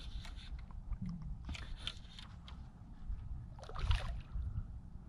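Hooked redfish splashing at the surface beside the paddleboard as it is played in: three short splashes, the loudest about four seconds in, over a steady low rumble.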